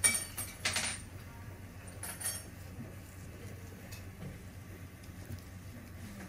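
A few short, light clinks in the first second and one more about two seconds in, over a faint steady low hum.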